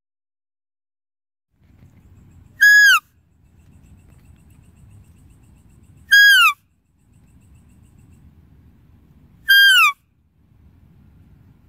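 A deer's call, given three times about three and a half seconds apart: each a short, high, clear note that holds and then slides down at its end. A faint low rumble runs between the calls.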